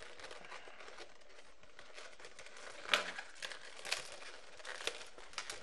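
Inflated 260 latex twisting balloons being handled and tucked into place: rubbing and crinkling latex, with a few short sharp sounds about three, four and five seconds in.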